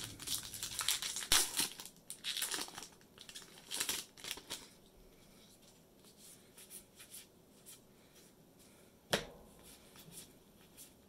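The foil wrapper of a Magic: The Gathering Time Spiral Remastered booster pack is torn open and crinkled in a series of crackling bursts over the first four or so seconds. After that come faint rustles and ticks of the cards being handled, with one sharp snap a little after nine seconds.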